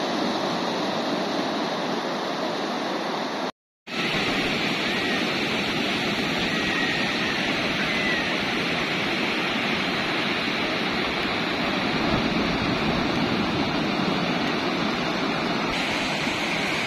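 Ocean surf breaking and washing up a sandy beach, a steady rushing noise. It cuts out abruptly for a moment about three and a half seconds in, then resumes.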